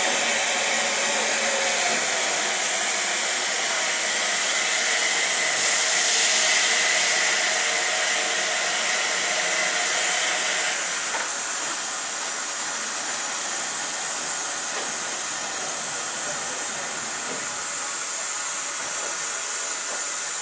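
Steam hissing steadily from LMS Princess Royal class Pacific No. 6201 Princess Elizabeth. The hiss grows stronger a few seconds in and eases a little about halfway through.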